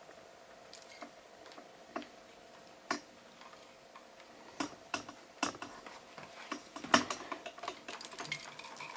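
A US MEDICAL Miami NE device being shaken, something loose inside rattling in irregular sharp clicks that come thicker towards the end: a stray loose part, a defect found on unpacking.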